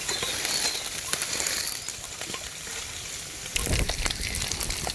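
Dried anchovies frying in hot oil, a steady sizzling hiss with a few light clicks as they are ladled out. A low rumble comes in about three and a half seconds in.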